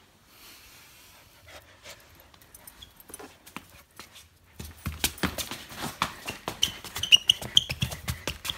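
Samoyed puppy scrambling and running on a tile floor, its claws clicking and scrabbling rapidly, much louder from about halfway through, with short high squeaks mixed in.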